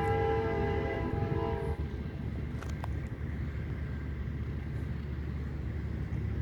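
CSX GE C40-9W diesel locomotive's multi-chime air horn sounding a chord of several tones, cutting off a little under two seconds in, over the steady low rumble of the locomotive and train.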